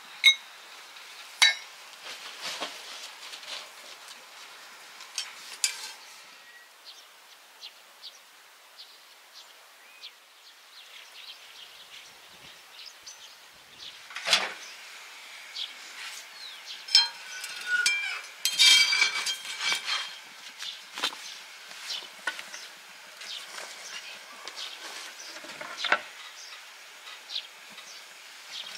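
Scattered clicks, knocks and metallic clinks from handling a small stainless-steel bread oven, its door latch and baking plate, while flatbread dough is loaded in. There is a sharp knock about halfway through, and a short run of ringing metal clatter soon after.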